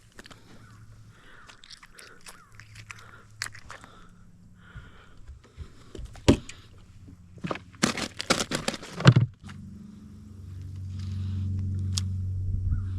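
Scattered clicks and knocks from handling fish and gear in a boat, with a rapid loud cluster of clicks about eight to nine seconds in. Then a steady low motor hum starts about nine and a half seconds in and grows louder.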